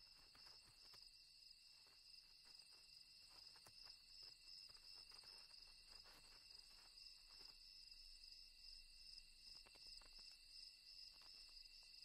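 Faint night chorus of crickets: a steady, unbroken high trill, with a few faint soft ticks scattered through it.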